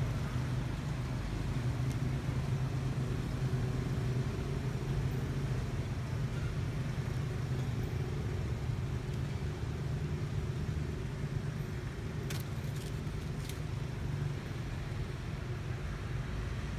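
A motor running with a steady low hum, with a few faint clicks about three-quarters of the way through.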